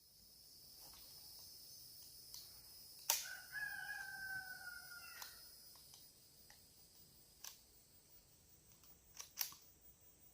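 A faint bird call, one held call of about two seconds that falls slightly in pitch, right after a sharp click; a few faint clicks follow near the end.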